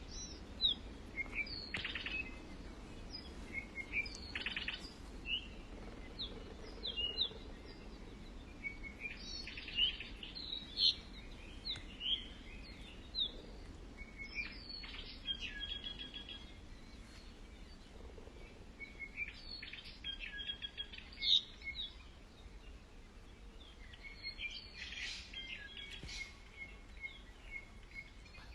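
Several small birds chirping, whistling and trilling in short overlapping phrases, over a steady low background hum.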